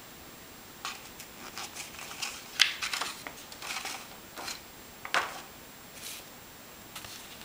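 Paper instruction sheet of a plastic model kit rustling as it is handled, in a string of short crinkles; the loudest come about two and a half seconds and five seconds in.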